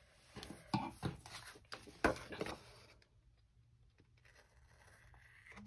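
Paper planner page being handled, with a quick series of sharp clicks and rustles in the first two and a half seconds, then scissors cutting softly through the paper page.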